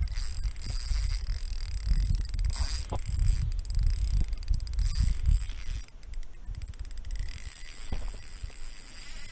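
Spinning reel clicking rapidly while a hooked fish pulls against it, over a heavy low rumble of hands handling the rod and reel. The rumble drops away about six seconds in.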